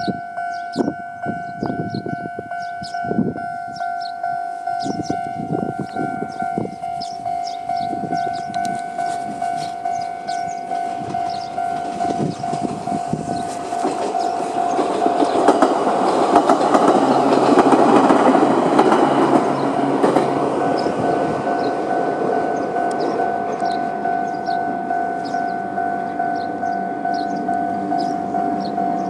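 Railway level-crossing alarm ringing at a fast tempo in the old electronic style, with a few knocks in the first seconds. A Chichibu Railway train runs over the crossing, and the rumble of its wheels on the rails swells to a peak around the middle and then fades.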